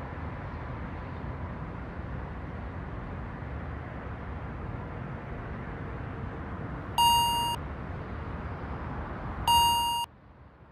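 Lift floor-arrival beep sounding twice, two short electronic tones about two and a half seconds apart, over a steady rushing hum from the moving lift cabin. The hum cuts off just after the second beep, as the lift stops.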